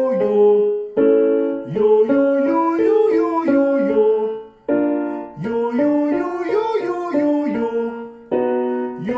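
Vocal warm-up exercise: a piano plays a chord and a voice sings a short up-and-down exercise pattern over it. This repeats three times, each round starting on a new chord.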